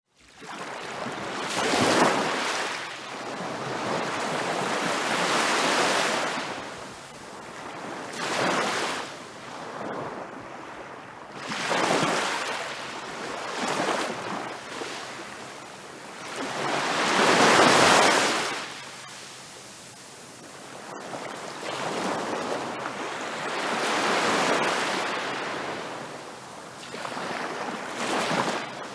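Large ocean waves crashing and washing ashore, a surging roar of surf that swells and falls back every few seconds, with the biggest breakers about two seconds in and again just past the middle.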